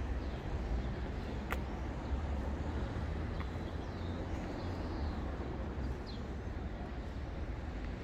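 Steady low outdoor rumble with a few faint, high bird chirps around the middle and a single sharp click about a second and a half in.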